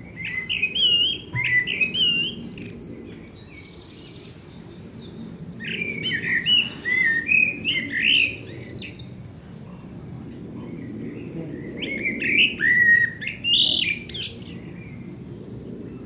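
Male Eurasian blackbird singing: three song phrases a few seconds apart, each a run of mellow fluted notes mixed with high, thin twittering.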